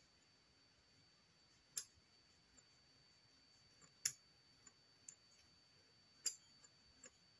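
A small metal brush worked over polymer clay to texture it: three sharp ticks about two seconds apart, with a few fainter ticks between, over near silence.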